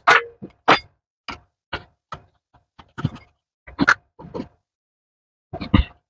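Short, irregular knocks and clicks of metal parts from a home espresso machine's opened thermoblock being handled on a workbench, about a dozen small hits, the loudest near the start, about four seconds in and near the end.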